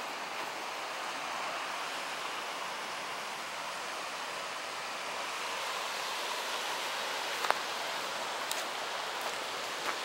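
Steady rushing of a waterfall and the river rapids below it, with a single sharp click about seven and a half seconds in.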